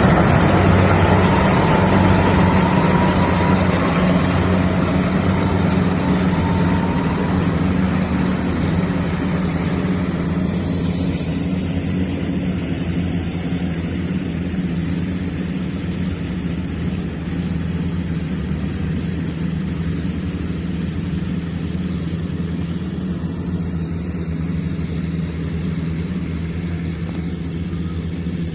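Rice combine harvester's diesel engine running steadily with a low drone, close at first, then more distant and duller from about ten seconds in.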